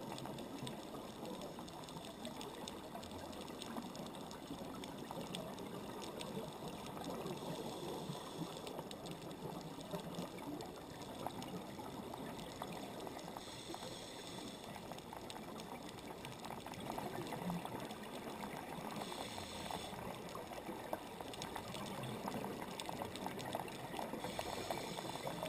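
Underwater sound picked up inside a camera housing: a constant fizzing crackle, with a brief gush of scuba exhalation bubbles from the diver's regulator four times, about every five to six seconds.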